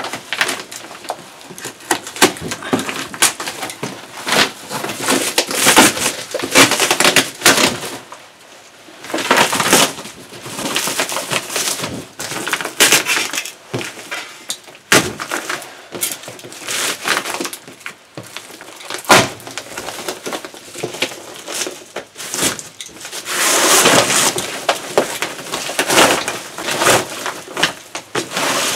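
Plastic packaging wrap being torn and pulled off a cardboard box, in bursts of loud crinkling and rustling, with a couple of sharp knocks in the middle.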